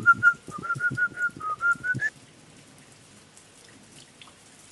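A quick whistled tune of about a dozen short notes over two seconds, rising on the last note, with a light tap under each note; then it stops.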